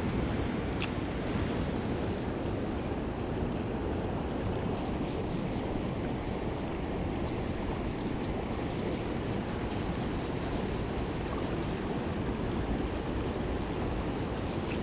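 Shallow river running fast over stones: a steady rush of water, heavy in the low end, likely with some wind on the microphone. A few faint high ticks show through it.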